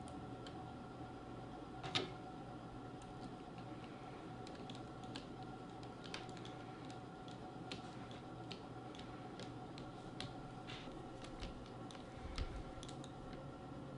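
Faint, scattered plastic clicks and small handling noises from a netbook's screen parts being fitted by hand, one click a little louder about two seconds in, over a steady low electrical hum.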